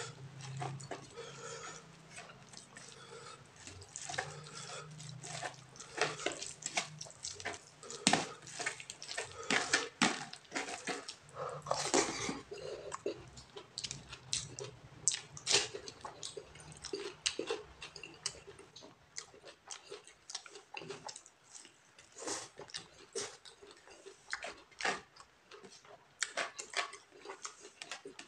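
Eating by hand with the mouth close to the microphone: chewing and lip smacking, heard as many short sharp wet clicks at an uneven pace, along with fingers mixing rice on a plate.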